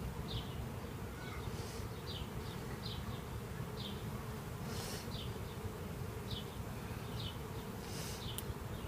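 Many honeybees flying close by, a steady buzzing hum, loose bees from a package being installed into a hive. Short high chirps repeat every second or so over the hum.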